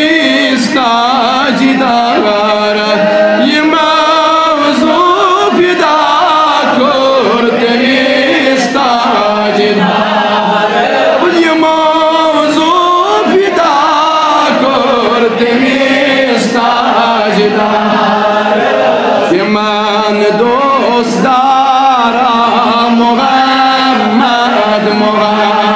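A man's voice singing a Kashmiri naat, a devotional Islamic song, solo and amplified through microphones, with long held notes that waver and bend. A steady low tone sits underneath the voice.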